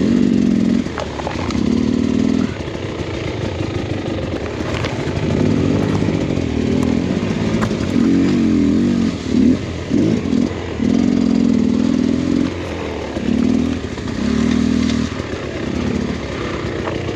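2023 Beta X Trainer 300 two-stroke dirt bike engine revving in short throttle bursts of about a second, again and again, falling back between them as the bike is worked through thick brush.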